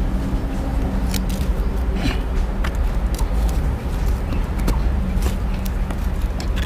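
Wire being wrapped and twisted tight around a wooden stake with pliers: scattered small clicks and scrapes over a steady low rumble.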